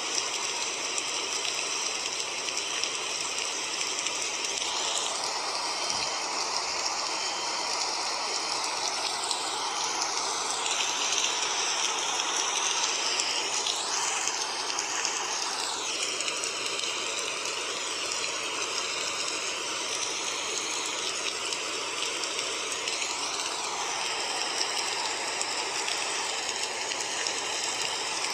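Steady rushing noise like running water or rain, with faint wavering tones layered under it.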